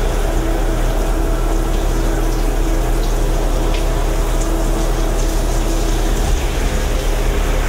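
Shower spray running steadily, water pouring down, with a steady low hum beneath.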